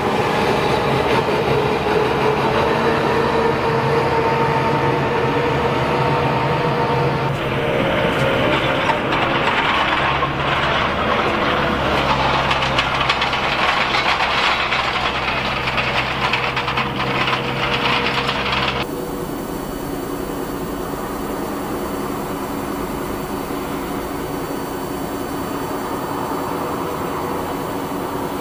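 Sukhoi Superjet 100's twin PowerJet SaM146 turbofans at takeoff power as the jet accelerates down the runway: a loud, steady jet noise with a held whine. About 19 seconds in the sound drops suddenly to a quieter, steadier jet noise as the aircraft departs.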